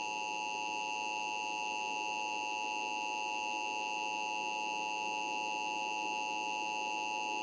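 Emergency Alert System two-tone attention signal, a steady electronic tone held without change, marking the start of an emergency alert broadcast. It cuts off abruptly near the end.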